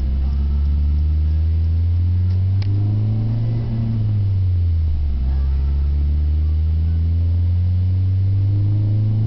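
2005 Dodge Neon SXT's 2.0 L SOHC four-cylinder breathing through a Magnaflow cat-back exhaust, heard from inside the cabin while accelerating. The deep exhaust note rises in pitch, drops back about four seconds in, then rises again.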